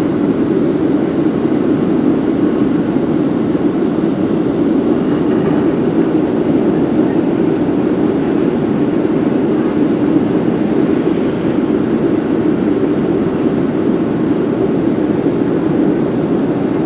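Steady drone of a Boeing 737's jet engines and rushing air, heard inside the passenger cabin in flight.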